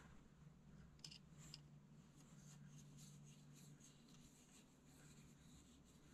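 Near silence: faint light clicks of small metal parts being handled at a carburetor's throttle linkage, two of them about a second in, over a faint low hum.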